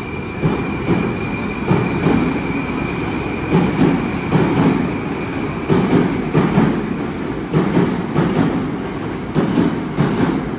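Metro train running through a station, its wheels clattering over rail joints in paired knocks about once a second over a steady rumble, with a thin high whine that fades out about halfway through.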